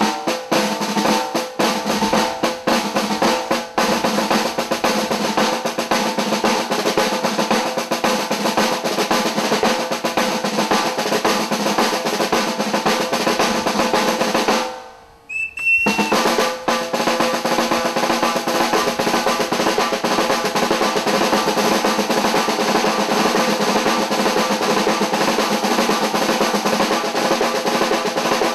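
Snare drum trio playing: fast strokes and rolls on three snare drums, stopping briefly about halfway, then going on as a steady, continuous roll.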